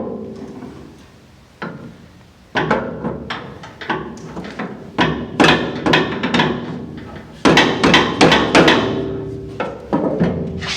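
Hammer tapping a steering shaft's splined universal joint down onto the steering rack, driving the splines into engagement. An irregular series of sharp metal blows, each with a short ring, coming faster and closer together in the second half.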